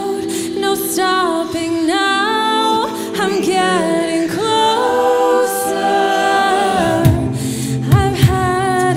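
A cappella vocal group singing close harmonies, several voices sliding up and down in runs. About seven seconds in, a deep bass voice and beatboxed kick-drum thumps come in.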